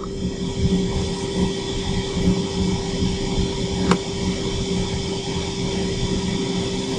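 Shinko steam turbine-generator set running steadily under load, carrying about 55 kW of resistive load at 1800 RPM: a steady machinery hum with a constant tone. A single short click comes about four seconds in.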